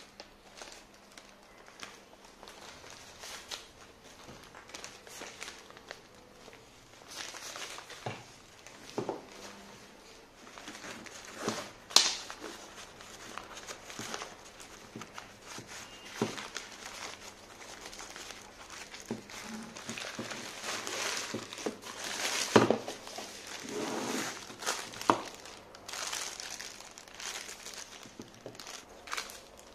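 Hands handling a black nylon drawstring tripod bag and pulling out a tripod wrapped in clear plastic: rustling fabric and crinkling plastic wrap, with a few sharp clicks and knocks, the loudest about twelve seconds in and again past twenty-two seconds.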